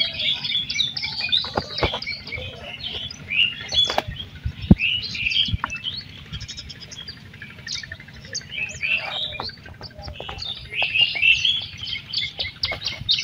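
Small birds chirping continuously, over a low rumble. Scattered sharp slaps and patters, typical of live small fish flapping in a plastic bucket of shallow water, come through now and then.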